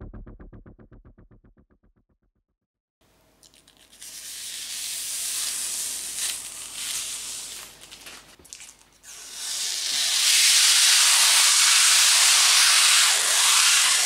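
Background music fades out, then after a short gap the crackling, hissing sound of protective plastic film being peeled off a tempered glass side panel, uneven at first and then loud and steady from about halfway.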